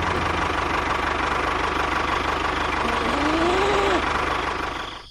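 An engine running steadily at idle, with a short rising-then-falling tone about three seconds in. The sound drops away abruptly at the very end.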